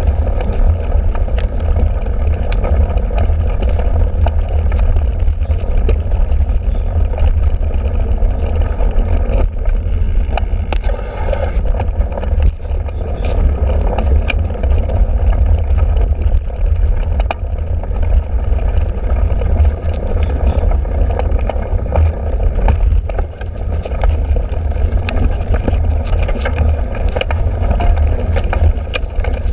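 Wind buffeting a handlebar-mounted camera's microphone over the steady rumble of a cyclocross bike's tyres on bumpy grass and mud, with frequent sharp knocks and rattles as the bike jolts over the ground.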